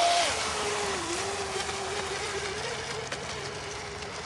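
Sigma Evo RC speedboat running at speed: a high motor whine, loudest at the start, drops in pitch within the first second, then holds steady and slowly fades as the boat runs away, with a hiss of spray at first.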